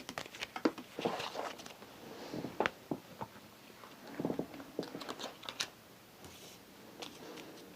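A tarot card deck being shuffled and handled by hand: irregular small clicks, snaps and rustles of cards.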